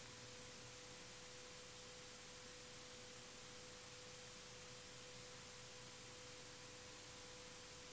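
Near silence: a faint steady hiss with a thin steady tone underneath, the recording's own background noise.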